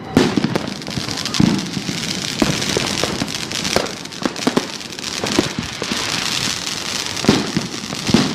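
Fireworks and firecrackers going off all around: a continuous crackle of many small bangs, with louder booms every second or two, the loudest about seven seconds in.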